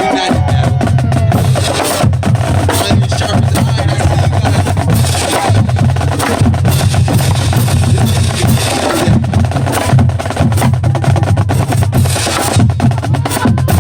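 Marching drumline playing a cadence: rapid snare drum strokes and rolls over a continuous low bass drum part, with short breaks in the bass every few seconds.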